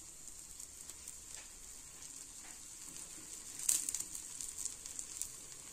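Faint sizzling of oil as a ragi and drumstick-leaf adai fries on a cast-iron tawa. A cluster of crackles and light scrapes of a metal spoon comes a little past the middle, as oil is spread over the top.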